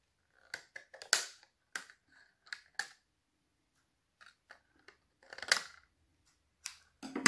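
Scissors snipping stray bits off a clear plastic cup cut into strips, with the thin plastic crackling in the hand: an irregular string of sharp clicks, loudest about five and a half seconds in.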